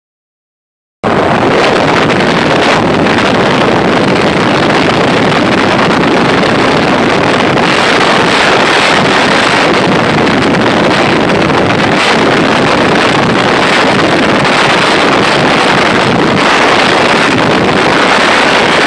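Bajaj Pulsar RS 200 motorcycle at high speed: steady wind roar over the microphone with the engine's drone mixed in. It starts abruptly about a second in.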